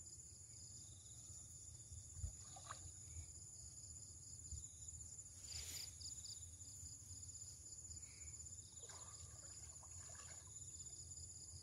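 Faint, steady high-pitched insect chorus trilling over a low rumble.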